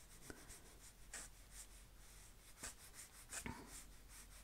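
Faint soft swishes of a paintbrush drawing watercolour paint across sketchbook paper, a handful of light strokes.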